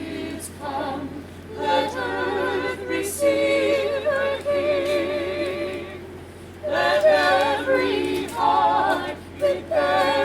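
A choir singing a cappella, with held notes wavering in vibrato and short breaks between phrases.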